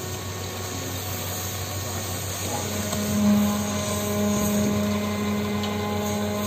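Electro-hydraulic Orts cargo grab and its crane working under load: a steady machinery drone, joined about two and a half seconds in by a strong steady hum that holds on as the grab closes on and lifts a load of coal.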